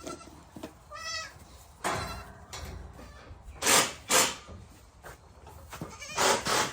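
Goats bleating: a clear, pitched bleat about a second in, then louder, harsher calls about four seconds in and again near the end.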